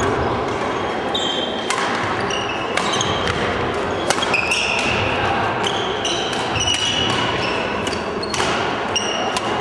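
Badminton rally: sharp cracks of rackets hitting the shuttlecock, several times, mixed with frequent short, high squeaks of players' court shoes on the wooden floor.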